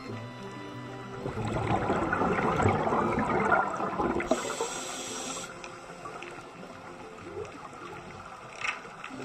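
Underwater scuba regulator exhaust: a dense rush of exhaled bubbles gurgling and crackling for about three seconds starting a second in, followed by a brief high hiss.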